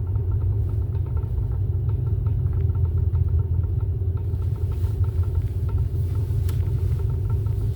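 Steady low rumble of a car on the move, with no change in loudness.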